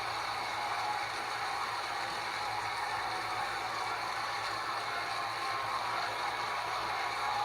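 Steady wash of arena crowd noise, a large audience cheering and shouting together.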